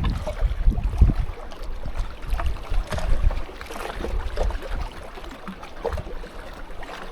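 Wind buffeting the microphone in uneven gusts, a low rumble, with faint scattered ticks over it.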